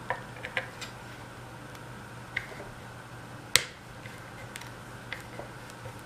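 Scattered small clicks and taps of a screwdriver and fingers working the screws out of a vacuum cleaner motor's plastic air diffuser and metal fan housing, with one sharper click about three and a half seconds in.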